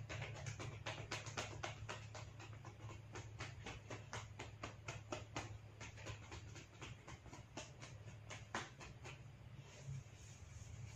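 Hair cracking: small sections of hair on the scalp tugged sharply, giving quick crackling snaps, several a second at first and thinning out later, over a steady low hum.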